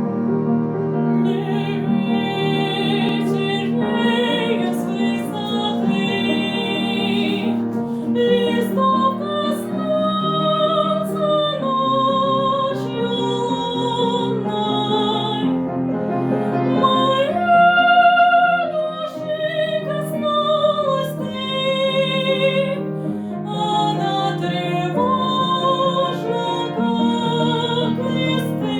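A female classical singer sings a Russian romance with piano accompaniment. Her long held notes carry a wide vibrato.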